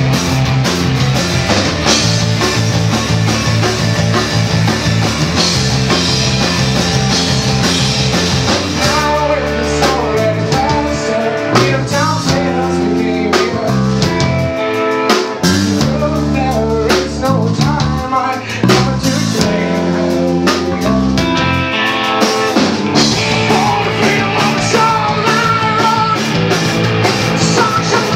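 Rock trio playing live: electric guitar, five-string bass guitar and drum kit. The full band plays densely at first, thins to a sparser passage of bass and guitar lines about nine seconds in, and fills out again about three-quarters of the way through.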